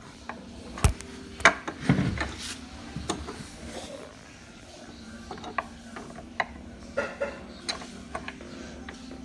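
Irregular clicks, knocks and scrapes of a screwdriver working at the screws under a table, tightening them by hand, with the loudest knocks about one to two seconds in.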